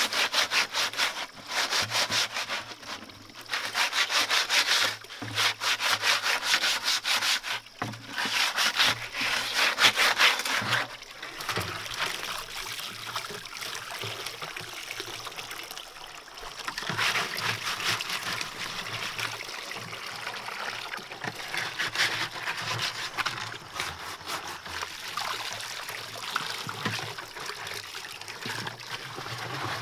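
A plastic jerry can being scrubbed clean, in bursts of rapid rubbing strokes for the first ten seconds or so. After that, spring water from a spout runs steadily into the can, with a few more short bursts of scrubbing.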